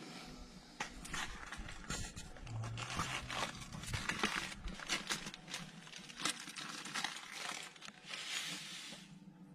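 Irregular rustling and crackling close to the microphone, with many scattered clicks, as of cloth or plastic being handled.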